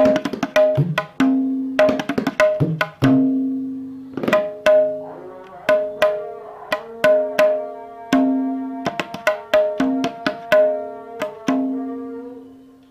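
Tabla right-hand drum with a full skin head and a black patch made of iron filings, played with the fingers. Quick runs of sharp strokes alternate with ringing, pitched open notes. The last note rings out and fades near the end.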